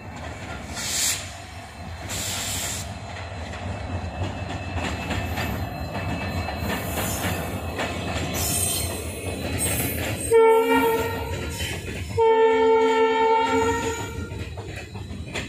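Indian Railways WDP-class diesel locomotive arriving with a long passenger train, its engine giving a steady low rumble. About ten seconds in it sounds its multi-note horn twice: a short blast, then a longer one of about two seconds.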